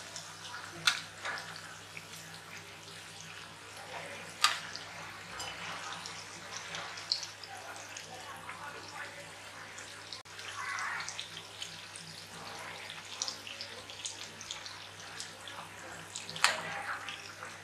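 Chakali deep-frying in hot oil in a kadhai: a steady sizzling, bubbling crackle. A metal slotted spatula clinks against the pan three times, about a second in, around four seconds in and near the end.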